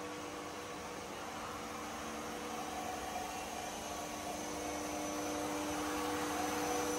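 S&T TIPL-4 tool room lathe running: a steady hum with a faint whine, growing slightly louder near the end. There is no knocking or rattle, the sign of a smooth-running spindle with no extra noise.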